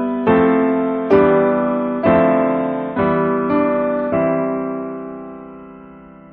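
Background piano music: slow chords struck about once a second, the last one held and fading away.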